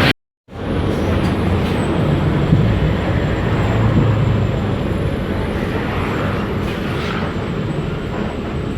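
Volksbus 17-230 city bus diesel engine running under way, heard from inside the bus as a steady low rumble mixed with road noise. The sound cuts out completely for about half a second just after the start, then comes back and eases slightly in level toward the end.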